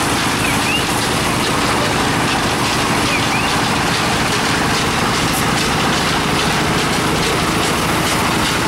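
An engine running steadily at a constant speed, with a little faint chirping twice over it.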